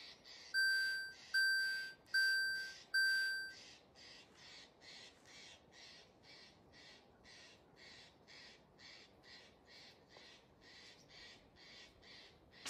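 Four electronic warning beeps, a little under a second apart, each dying away. After them comes a steady rasping pulse, about two a second.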